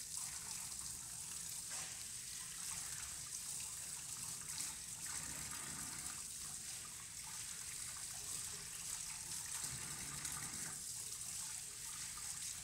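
Tap water running steadily into a sink, splashing over hands rinsing under the stream.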